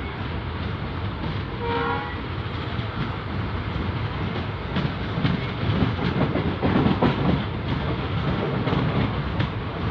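A moving passenger train heard from its open doorway: the steady rumble of wheels on rail, with one brief horn toot about two seconds in. From about five seconds in, a louder clickety-clack of wheels over rail joints.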